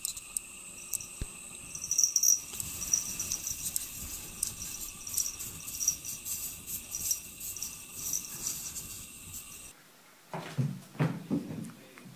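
A cat clawing and pawing at a wall of packed snow: faint, irregular scratchy crunches over a steady high hiss. Near the end the sound changes abruptly to a few low, muffled bumps.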